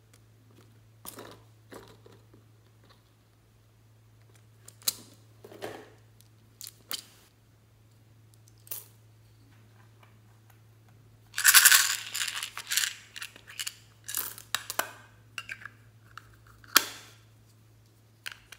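Hard plastic toys handled and pulled apart: scattered clicks and knocks, a dense rattling clatter of hard plastic about eleven and a half seconds in, and a sharp click near the end.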